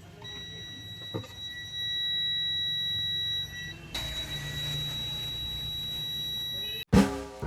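A steady, high-pitched electronic beep tone for about three and a half seconds. It is followed by a hiss with a low hum and the same high tone under it. Near the end, music starts loudly.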